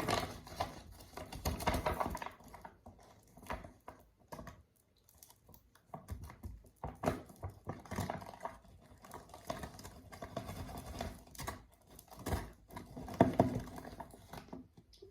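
Homemade cloud slime being poured and stirred in a measuring cup with a stick: a run of irregular clicks, taps and scraping.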